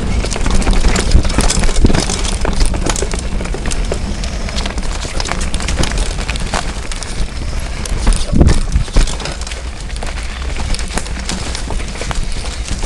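Mountain bike riding fast over rough dirt singletrack: the tyre running over the ground and the bike rattling and clattering with constant knocks from bumps, under a steady low rumble, with a heavier thump about eight seconds in.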